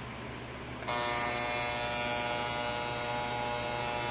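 A vintage General Electric 7354 electric alarm clock's buzzer alarm goes off about a second in, giving a steady, even buzz.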